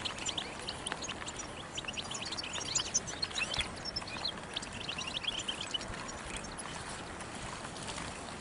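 A crowd of caged European goldfinches twittering, many quick high chirps overlapping, busiest in the middle, over a steady rushing background noise.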